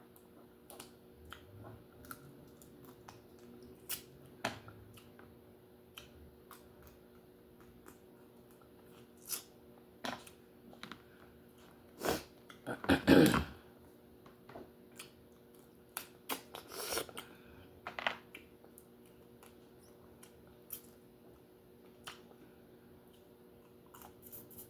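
Close-miked eating of lobster: scattered clicks and small cracks of shell and utensils with chewing, and one louder, longer mouth sound about thirteen seconds in. A faint steady electrical hum runs underneath.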